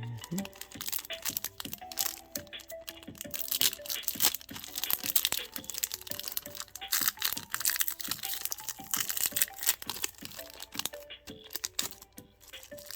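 Foil Pokémon booster pack wrappers crinkling and crackling as packs are opened and cards handled, in a dense run of sharp crackles over background music.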